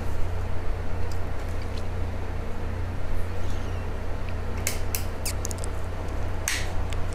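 Hard plastic clicks and clacks of a Haslab Neutrona Wand prop being handled and fitted against the wand bracket of the proton pack, in two quick clusters about two-thirds of the way in and near the end, over a steady low hum.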